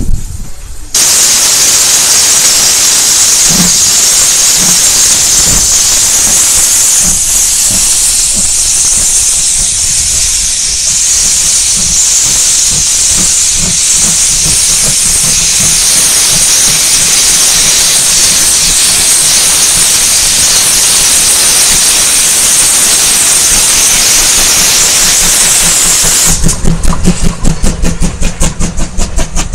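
Steam tank locomotive blowing off a long, loud, steady hiss of steam from low at the cylinders, typical of open cylinder drain cocks. Near the end the hiss gives way to quick, regular exhaust beats as the locomotive chuffs away.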